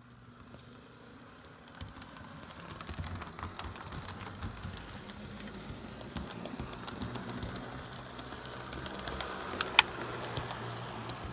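HO scale model train running on the track: a Proto 2000 E6A diesel locomotive pulling Rivarossi passenger cars, its wheels rolling and clicking rapidly over the rails. It grows louder about two seconds in, and there is one sharp, loud click near the end.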